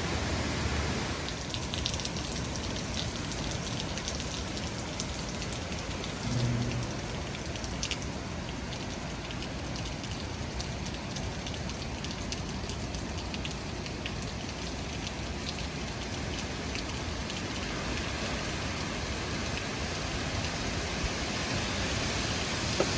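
Steady rain from a tropical storm, an even hiss with scattered faint ticks in the first several seconds.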